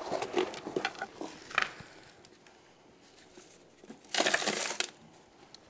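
Handfuls of stony soil being scooped by hand from a bucket and dropped into a box: scattered gritty scrapes and rustles, then a louder gritty pour of soil and stones about four seconds in.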